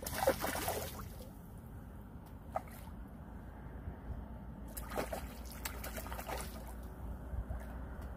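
Water splashing as a diving water bird breaks the surface. The loudest splash comes at the start, with a single small splash a couple of seconds later and a second run of splashes about five seconds in.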